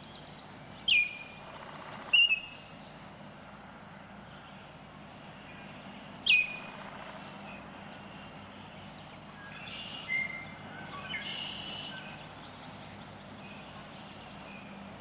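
Baltimore oriole calling: three loud, short notes that slur sharply downward, about a second in, at two seconds and at about six seconds, then softer calls around ten to twelve seconds. A steady low hum and hiss lies underneath.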